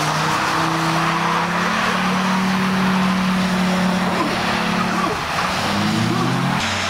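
Car engines running under throttle as cars slide across a wet skid pad, with a steady hiss of tyres throwing up water spray. Engine revs rise about five and a half to six and a half seconds in.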